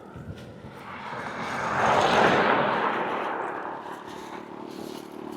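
A motor vehicle passing by, growing louder to a peak about two seconds in and then fading away.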